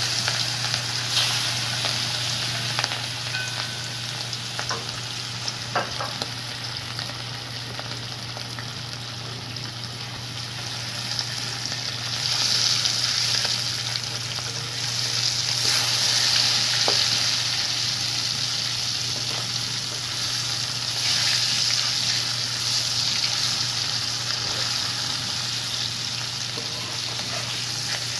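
Hilsa fish pieces frying in hot oil in a kadai: a steady sizzle that swells louder several times, with a few light clicks.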